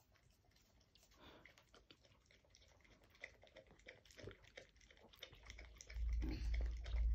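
A dog licking and lapping from a paper cup: a run of small, quick wet clicks, growing busier as it goes. A low rumble comes in about six seconds in.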